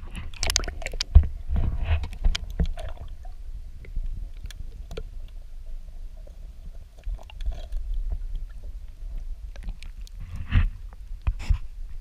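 Muffled water sloshing and gurgling heard from under the water, over a low rumble, with scattered knocks and clicks, the loudest just after the start and again twice near the end.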